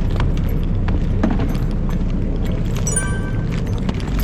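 Steady low engine rumble with some noisy clatter on top. About three seconds in, a brief high-pitched tone sounds for under a second.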